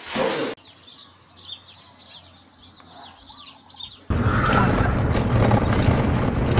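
Small birds chirping in quick, falling high notes after a brief hiss; about four seconds in, a sudden cut to a loud, steady rumbling noise.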